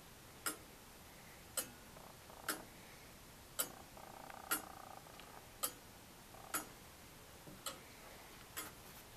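Anchor escapement of a 1690 William Clement 30-hour longcase clock ticking, about one tick a second. Nine sharp ticks, their spacing alternating slightly longer and shorter.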